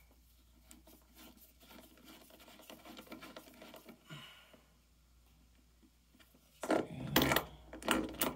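A peg bolt being screwed into an e-bike frame by hand: faint scraping and rubbing of the threads with small ticks, then a few louder clicks and knocks in the last couple of seconds.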